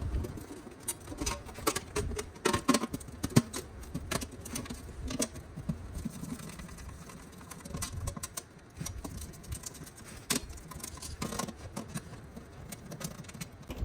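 A run of irregular light clicks and knocks, some louder than others.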